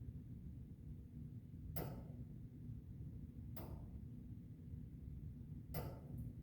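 Sharp single ticks about every two seconds, over a low steady rumble.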